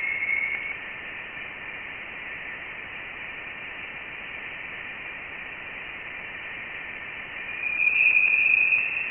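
Voyager 1's plasma wave instrument data played through a loudspeaker: a steady hiss with thin, high tones. A faint tone sits near the start, and a louder, slightly higher tone swells in about seven and a half seconds in. These are plasma waves excited by electrons around the spacecraft, taken as solid evidence that Voyager 1 had left the heliosphere for interstellar space.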